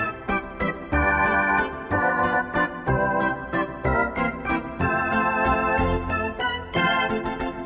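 Instrumental music with an organ-like keyboard playing short, rhythmic chords.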